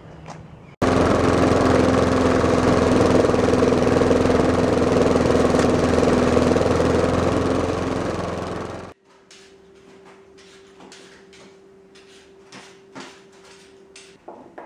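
Gasoline lawn mower engine running steadily, cutting in suddenly about a second in and fading out about eight seconds in. Faint clicks and handling noises with a low steady hum follow.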